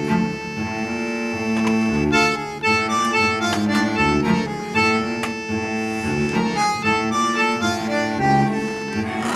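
Background music: a reedy, accordion-like melody over sustained chords and a light beat.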